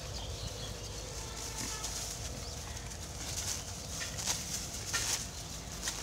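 Pigs rooting through plastic litter: rustling and crinkling of plastic bags, with brief louder crackles in the second half over a steady low rumble.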